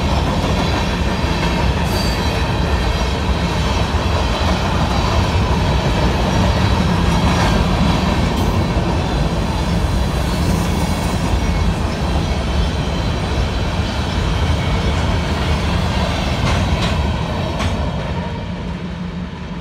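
Train rolling past: a steady rumble of rail cars with the occasional clack of wheels over rail joints, fading near the end.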